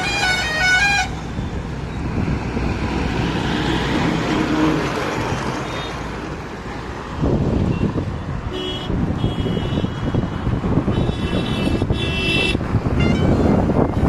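Road traffic passing, with vehicle horns honking in several blasts in the second half.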